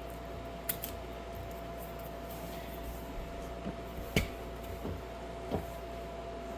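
A few light clicks and knocks from hands handling parts, the loudest about four seconds in, over a steady faint hum.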